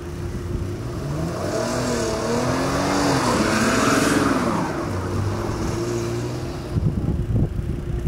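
A car engine revving, its pitch climbing and easing off a couple of times and loudest about halfway through, over a steady hum.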